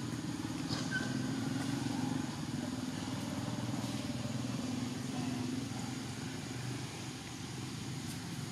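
Steady low drone of a motor vehicle engine running nearby, swelling a little in the first couple of seconds and easing off near the end.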